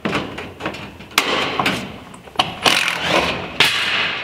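Thin sheet-metal trim scraping and rattling against a steel ceiling panel as it is handled overhead, in several rough, irregular bursts.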